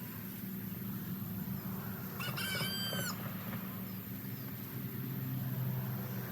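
A rooster crows once, about two seconds in, over a steady low hum.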